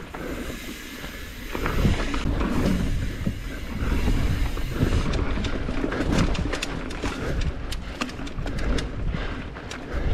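Mountain bike riding over rough trail: a steady rumble of wind on the microphone and tyres rolling, with the bike rattling and knocking in many sharp clicks, thickest in the second half.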